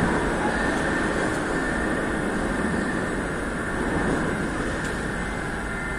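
Metro train pulling out of the station, its running noise echoing in the hall and slowly fading.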